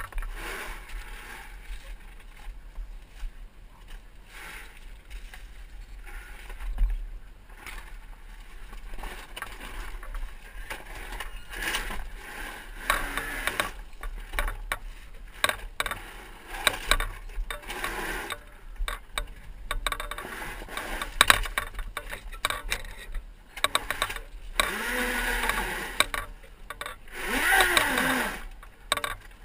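A 2012 Zero MX electric dirt bike crawling over rocks down a steep gully, heard from the rider's helmet: irregular clatter and knocks of the bike and its tyres on the rocks, with no engine note. Short wavering whines rise and fall near the end.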